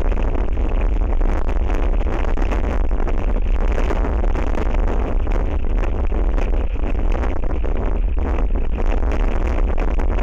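Strong wind buffeting the microphone of an outdoor nest camera: a loud, steady rumble with a gusty hiss over it.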